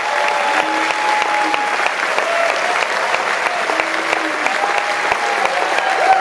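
Audience applauding steadily, with some held cheers over the clapping, as a live song ends.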